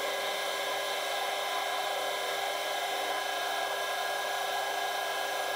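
Metal lathe running steadily as its cutting tool turns down a chrome-plated bar: an even machine noise with several steady whining tones and no change through the cut.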